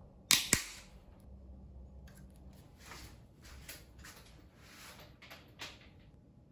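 Cable cutters snipping the end of a bicycle rim-brake cable: two sharp snaps about half a second in. Softer rustling and a light knock follow as the bicycle is handled and lifted.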